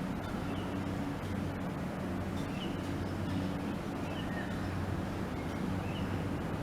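Steady low mechanical hum, with faint short high bird chirps about every second and a half.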